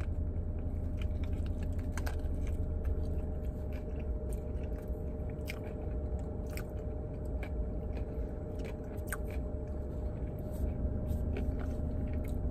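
A person biting into and chewing a pressed Cuban sandwich on crisp bread, giving many small scattered crunches, over a steady low hum.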